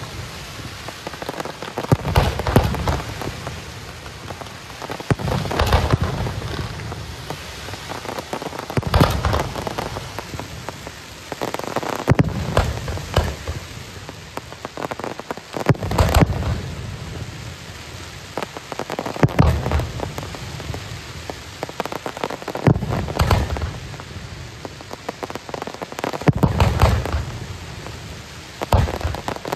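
Fireworks going off in repeated salvos about every three to four seconds. Each salvo is a cluster of sharp bangs, with a dense, rain-like crackle filling the gaps between them.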